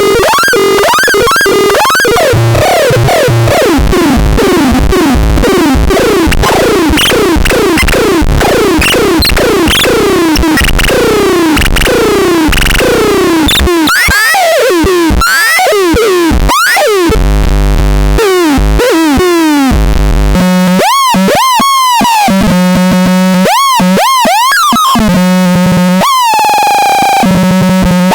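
Baltarel Ultra Max's electronic sound effects playing loudly. First comes a long run of quick falling chirps; then choppier sweeps; then repeated rising-and-falling swoops over a steady low drone.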